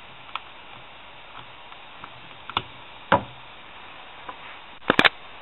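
Handling a PSP handheld console: a few scattered small plastic clicks and taps, the loudest about three seconds in and a quick double click near the end, over a steady hiss.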